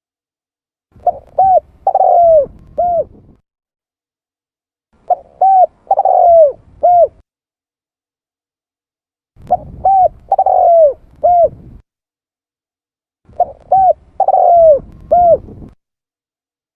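Spotted dove (tekukur) cooing its song four times. Each phrase is two short coos, a longer drawn-out coo and a final short coo, with a pause between phrases. This is a recorded call of the kind played as a lure to attract wild doves.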